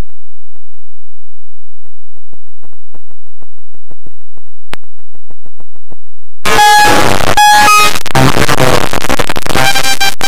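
Loud, heavily distorted music with sustained held notes, cutting in about six seconds in after near silence broken only by faint ticks.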